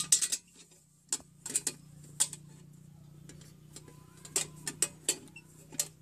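Sharp, irregular metal clicks and knocks as a welded steel tap-lock box is worked by hand around the pipe, its tight-fitting hinge halves knocking together, about a dozen clicks in all. A low steady hum runs underneath.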